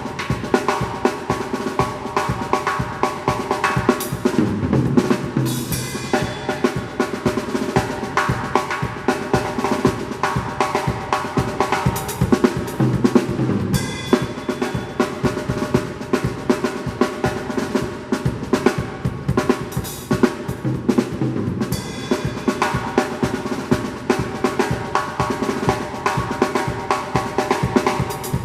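Drum kit playing a fast sebene groove and fills: snare, bass drum and rimshots in dense, rapid strokes without a break.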